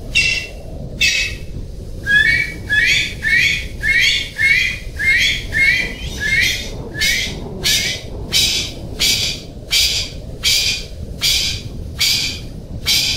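Male golden pheasant calling: a long run of short, harsh, high notes about two a second, after two more widely spaced notes at the start, over a steady low background noise.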